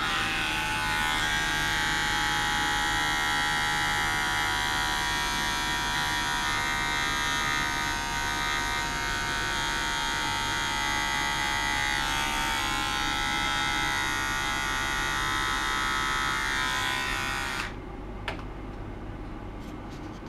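Steady electric buzz from a small vibrating device held against a bowl, setting it vibrating for a measurement; it starts abruptly, rings with many high overtones, and cuts off about 17 seconds in, followed by a faint click.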